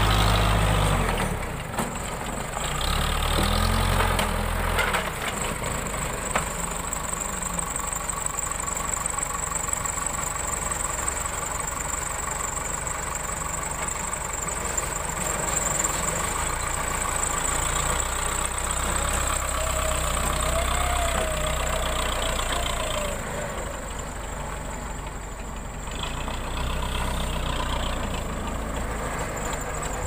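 Case backhoe loader's diesel engine running while the machine works with its pallet forks, the engine note rising and falling at times.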